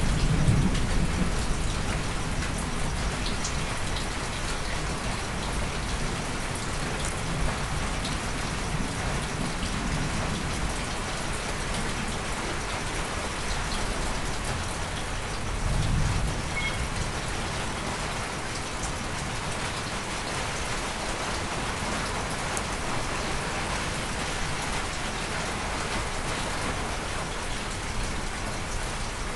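Steady, even hiss of noise with a fine patter to it, with a low rumble at the start and a brief one about sixteen seconds in.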